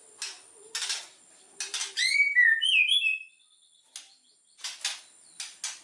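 White-rumped shama (murai batu) singing in full voice: short harsh rasping notes, then a loud run of clear, gliding whistled phrases about two seconds in, followed by more rasping notes.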